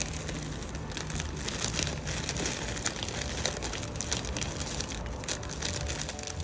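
Plastic snack bag of pork rinds crinkling as it is tipped and shaken over a bowl, the rinds and crumbs spilling out. A dense, irregular crackle goes on throughout.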